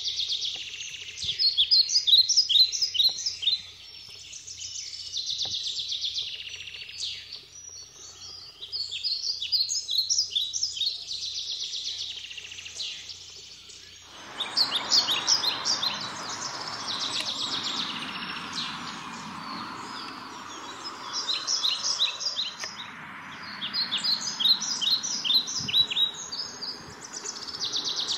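Songbirds singing: phrases of rapid, high repeated notes a few seconds long, one after another. About halfway through a steady rushing noise comes in under the song.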